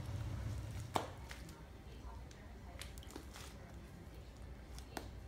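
Faint, sticky squishing of homemade glue slime being worked by hand, with a sharp click about a second in and another near the end.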